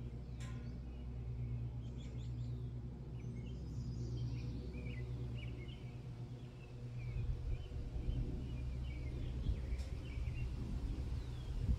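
Small birds chirping in short scattered calls, over a steady low hum that turns to an uneven low rumble about seven seconds in.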